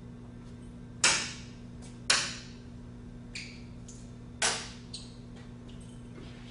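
Three sharp knocks, about a second in, two seconds in and four and a half seconds in, each with a short ringing tail, and a couple of fainter ticks between them, over a steady low electrical hum.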